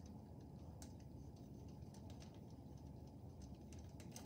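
Faint, scattered light clicks and crinkles of a dry-erase marker drawing on crumpled aluminium foil, over a low room hum.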